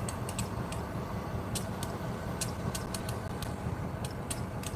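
Steady low rumble of road traffic on the street beyond the tracks, with scattered sharp ticks at irregular intervals.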